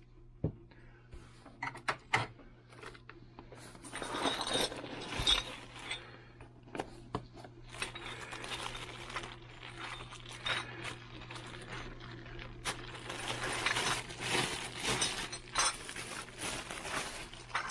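Clear plastic bag crinkling as it is cut open and a bundle of metal lathe change gears is unwrapped, with light metallic clinks of the gears knocking together. The crinkling comes in two spells, about four seconds in and again near the end.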